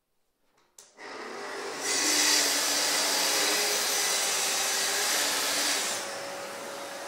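Festool plunge-cut track saw starting up about a second in, then cutting through a wooden panel along its guide rail for about four seconds, loud and steady; near the end the blade leaves the cut and the saw runs on more quietly.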